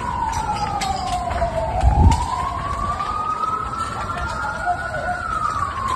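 Emergency vehicle siren on a slow wail: the pitch falls, climbs back up over about three seconds, then falls again near the end. A low thump comes about two seconds in, and scattered sharp clicks run under the siren.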